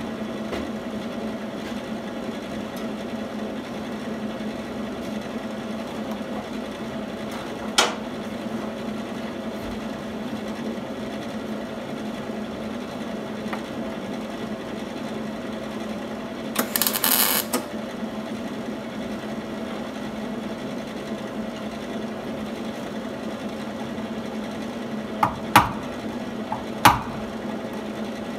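A steady machine hum runs throughout. About halfway through there is a roughly one-second crackling burst of MIG welding on the car's body steel, and near the end a hammer strikes the sheet metal a few sharp times.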